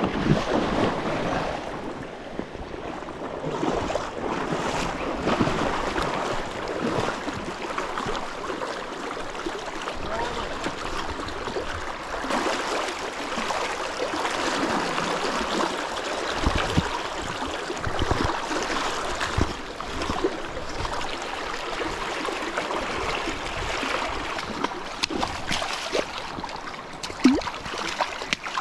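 Fast, shallow river current rushing and splashing close by, a steady wash of water noise with a few short low thumps.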